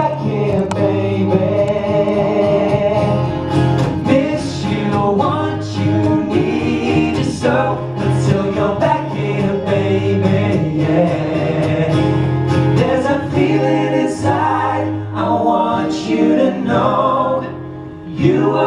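Live pop-rock performance: male voices singing in harmony over acoustic guitar.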